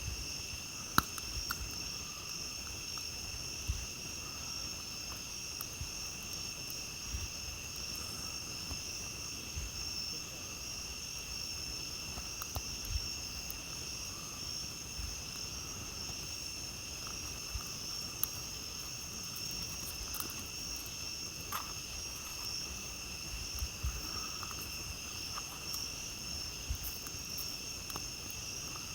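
Steady, continuous chorus of night crickets, with scattered small pops and crackles from a burning campfire; the sharpest pop comes about a second in.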